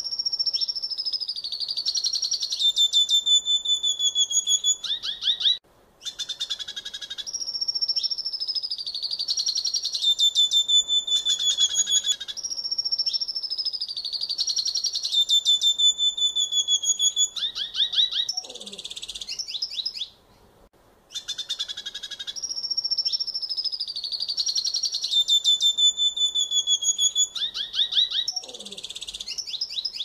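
Red siskin singing a long, fast twittering song. It mixes high whistled notes that slide downward with rapid trills and chatter, broken by short pauses about six and twenty seconds in.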